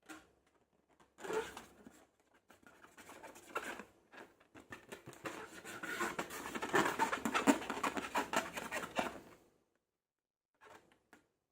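Slime being squeezed and worked by hand close to the microphone, making wet crackling and clicking. It comes in short bursts at first, then runs thick and continuous through the middle and stops, with one short burst near the end.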